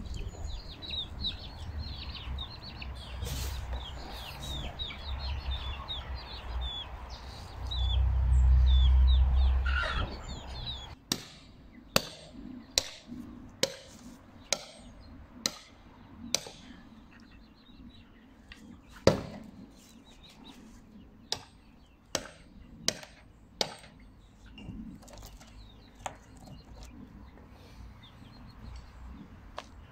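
Birds chirping over a low rumble, which swells loudly about eight seconds in. From about eleven seconds in, a hammer strikes a wooden log with sharp blows, roughly one a second in short runs with pauses between.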